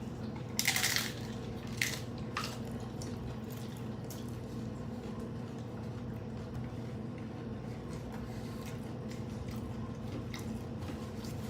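Close-up eating sounds: a crisp hard-shell taco crunching with chewing, the loudest crunch about half a second in and a few smaller ones after, over a steady low hum.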